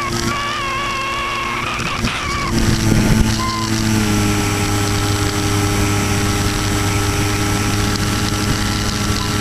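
Electric motor and propeller of an Easystar 2 RC model plane in flight, heard from the camera on board: a steady whine that wavers for the first couple of seconds, swells briefly, then shifts pitch about four seconds in and holds steady.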